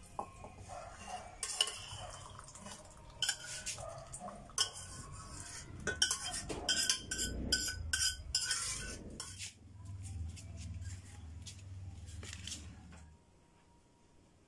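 A stainless steel cooking pot clinking and clattering against a ceramic bowl and the tiled counter as it is handled and tipped to pour, with a busy run of clinks in the middle. A low steady hum follows and cuts off suddenly near the end.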